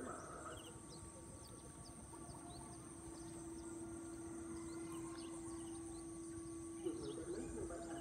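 Quiet outdoor ambience: faint, scattered chirps of small birds over a steady low hum and a steady high hiss.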